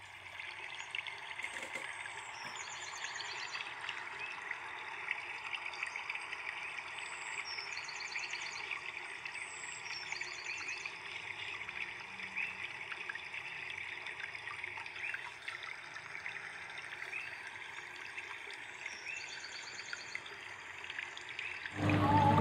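Steady trickle of running water, with a few short, high bird trills over it. Music starts near the end.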